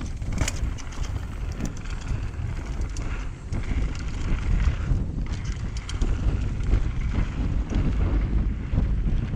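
Wind buffeting the microphone over the low rumble and rattle of a mountain bike rolling fast over rocky dirt singletrack, with a few sharp clicks and knocks.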